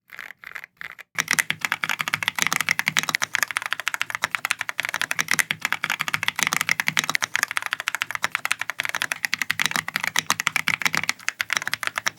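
Typing on a Keychron mechanical keyboard: a few separate keystrokes, then from about a second in, fast, continuous typing.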